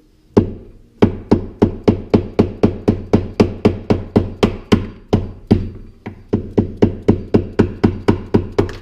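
Mallet striking a new door hinge bushing on a 1990s GM pickup, driving it down into the hinge: a fast, steady run of sharp blows, about three to four a second, with one brief pause around the middle.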